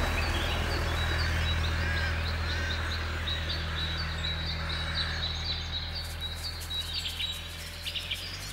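Old tractor with a mower running steadily, a low engine drone, while songbirds chirp over it again and again; the drone fades away near the end.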